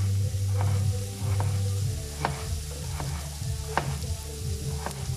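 Onions and carrot slices sizzling in a frying pan, with a knife clicking against a cutting board about once a second, over a low steady hum.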